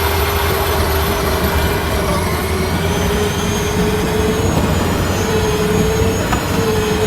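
Power Wheels ride-on toy car upgraded to an 18-volt battery, driving: a steady electric motor whine that wavers a little in pitch over a loud rumble of hard plastic wheels on pavement.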